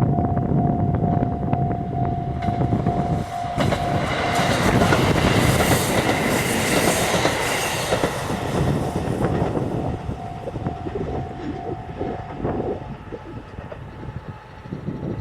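KiHa 183 series diesel train passing over a level crossing: the rumble of engines and wheels clattering over the rail joints swells to its loudest about five to nine seconds in, then fades. Over it the crossing's warning bell rings a repeating tone, heard at the start and again from about ten to thirteen seconds in.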